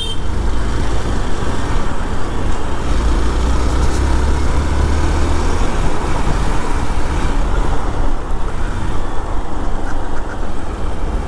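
Hero XPulse motorcycle riding on a rough road: engine and tyre noise under a heavy low rumble of wind on the microphone, strongest a few seconds in.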